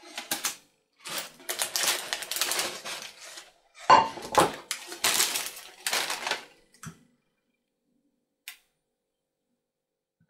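Baking parchment crinkling and rustling while a round pan-baked loaf is moved onto a stainless wire cooling rack. There is a sharp knock about four seconds in and a few light clicks near the end.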